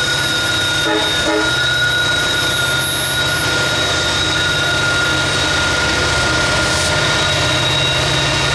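Two EMD SD70-series diesel-electric locomotives, an SD70ACC and an SD70ACe, pulling hard upgrade under heavy load as they pass close by. A loud, steady, deep engine rumble runs with a steady high whine over it.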